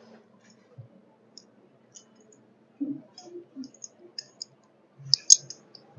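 Scattered faint clicks and a few soft knocks, with one sharper click near the end, from a cow's rope tether and neck collar being handled.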